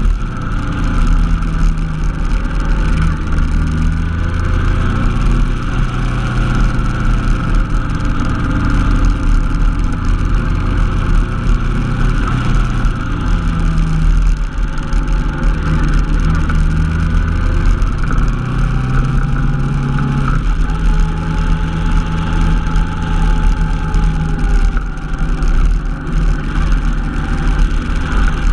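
Honda NT700V Deauville's V-twin engine running while riding, with steady wind rumble; the engine note shifts up and down a few times as the throttle changes.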